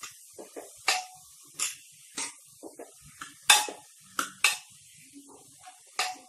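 Metal spoon scraping and clinking against the inside of a pressure cooker while stirring chopped onions as they fry. The strokes come irregularly, about two a second, the loudest a little past halfway.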